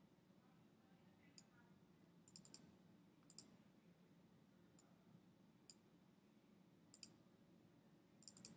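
Faint computer mouse button clicks, some single and some in quick pairs or short runs, scattered irregularly over quiet room tone.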